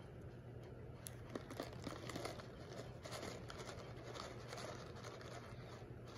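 Faint crinkling of a plastic treat pouch (Red Barn Protein Puffs) being handled to get treats out, with a few sharper crackles between one and two and a half seconds in.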